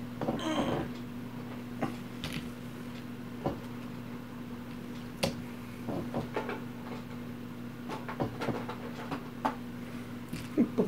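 Hands unpacking board-game miniatures from their packaging: scattered light clicks, taps and knocks, with a brief rustle about half a second in, over a steady low electrical hum.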